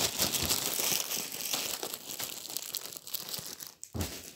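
Dried, crumbled herb leaves crackling and rustling in a crinkling plastic bag as they are handled and tipped out. The crackling dies down after about three seconds, with a single tap shortly before the end.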